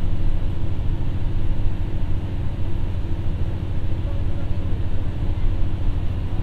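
Ibara Railway IRT355 diesel railcar running, heard from inside the passenger cabin: a steady low rumble of the diesel engine and the wheels on the rails.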